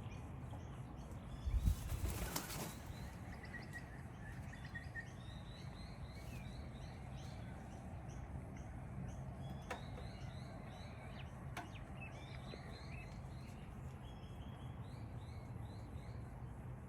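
Wings of a sulphur-crested cockatoo flapping as it takes off: a short burst of wingbeats about two seconds in, the loudest sound here. Small birds chirp faintly and repeatedly throughout.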